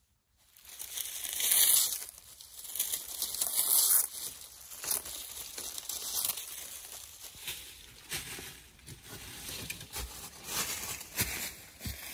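Dry, papery beech leaves crinkling and crackling as a branch is brushed past, loudest in the first few seconds, then footsteps crunching through dry leaf litter with irregular crackles and soft thuds.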